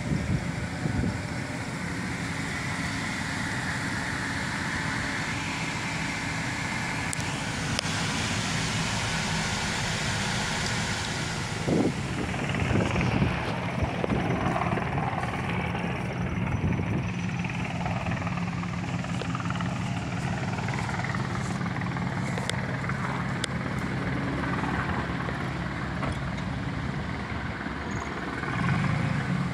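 2004 Chevrolet Silverado 1500 pickup's engine idling steadily, with a few handling clicks on top.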